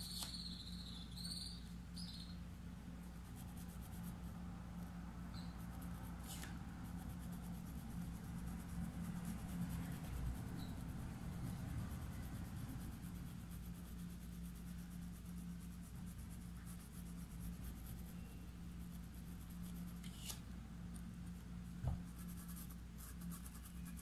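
Paintbrush rubbing in small circles on fabric stretched in an embroidery hoop, working acrylic paint into the cloth: a faint, continuous scratchy rubbing over a steady low hum, with a single sharp click near the end.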